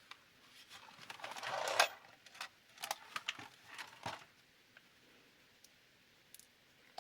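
Small parts of a hand-drill assembly kit being handled on a work surface: a rustling scrape that swells for about a second, then a few sharp clicks and taps.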